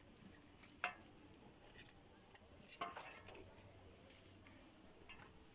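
Near quiet, with a few faint knocks and clinks, one about a second in and another near three seconds in, over faint high chirping in the background.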